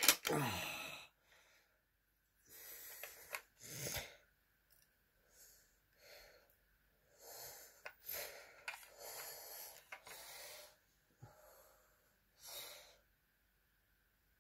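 A person breathing heavily in uneven, breathy puffs close to the microphone, with a sharp click about four seconds in.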